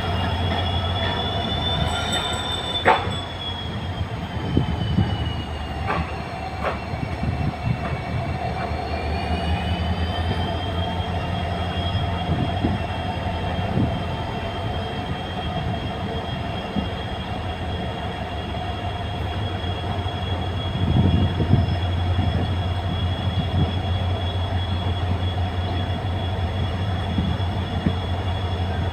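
Passenger train running on the rails with a steady low hum. Over it are high-pitched wheel squeals that dip slightly in pitch and come back up, and a few sharp clicks from the track about 3 and 6 seconds in.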